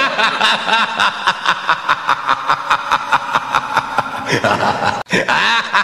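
Continuous laughter, an even 'ha-ha-ha' of about three laughs a second, with swooping pitch and a brief break about five seconds in.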